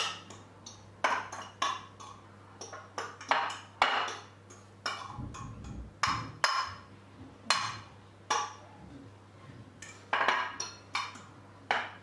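Metal fork scraping and clinking against a glass baking dish while fluffing steamed couscous, in irregular strokes about once or twice a second.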